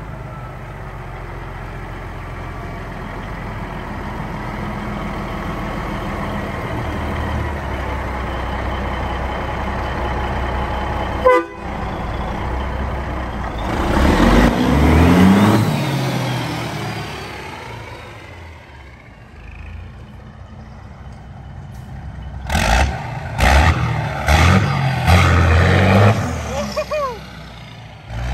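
Diesel engine of an old cab-over semi pulling truck running steadily, then revved hard: one rising surge partway through and several short sharp bursts near the end as it pulls away under load, blowing heavy black smoke.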